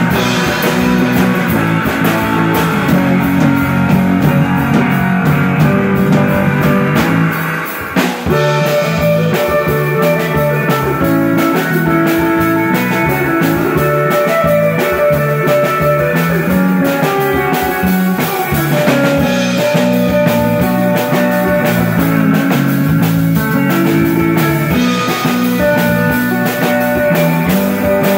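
Live instrumental rock band playing: two electric guitars through amplifiers and a drum kit with steady cymbal strokes. About eight seconds in the playing briefly drops away, then the band comes back in on a sharp hit.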